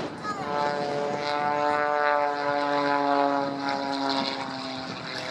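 Pitts S2S aerobatic biplane's 260 hp six-cylinder piston engine and propeller running hard, the note swelling about half a second in and falling slowly in pitch as the plane passes.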